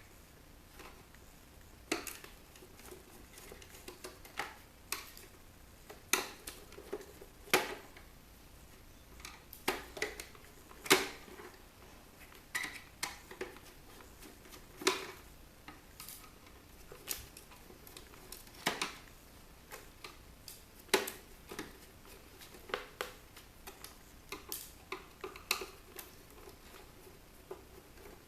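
Irregular light metallic clicks and clinks, about one a second, from tools and small metal parts being handled while an electronic unit is taken apart.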